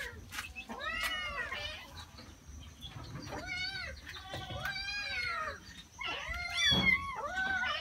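Several hungry cats meowing over and over, begging as their food is dished out, the calls overlapping and loudest near the end. Light clicks of a spoon against a food tin between the meows.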